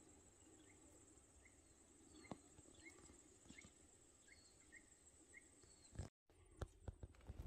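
Faint outdoor ambience: a steady high-pitched insect drone with short high chirps repeating every half second or so. About six seconds in, a cut brings a different quiet background with a few sharp clicks.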